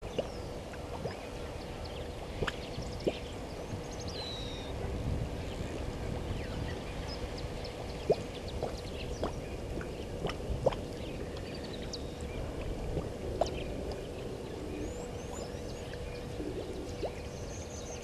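Outdoor ambience at a waterhole: a steady low rumble and a faint constant hum, with scattered sharp clicks and a few faint, short high-pitched bird calls.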